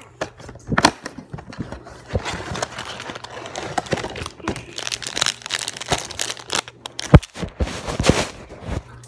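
Bubble gum being chewed and smacked right at the phone's microphone while a bubble is being attempted: a string of wet crackling clicks and pops, with a few sharper, louder snaps about a second in and near the end.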